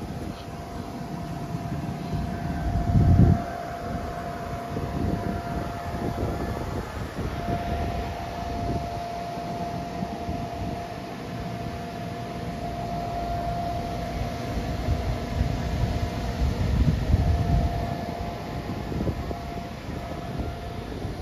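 Electric inflatable blower running with a steady whine, keeping a bounce house inflated. Wind buffets the microphone with an uneven low rumble, loudest about three seconds in and again around seventeen seconds.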